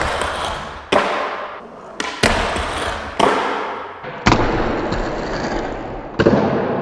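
Skateboard on titanium trucks popping onto a granite ledge and grinding, about six attempts in a row. Each starts with a sharp clack and is followed by a rough scrape of about a second. The titanium grinds badly on granite, like trying to grind a file.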